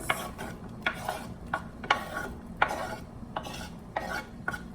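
A spoon stirring onions and garlic through melted butter in a pot, scraping and knocking against the pot in repeated strokes, over a sizzle.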